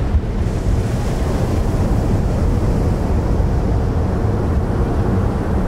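Deep, steady rush of breaking sea surf, with wind buffeting the microphone.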